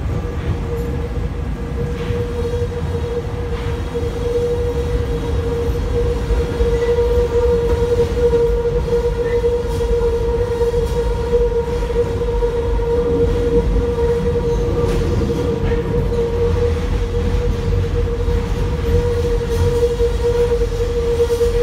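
Inside an MF67 Paris Métro car running through a tunnel: steady low rumble of steel wheels on rail, with a continuous high whine held at one pitch.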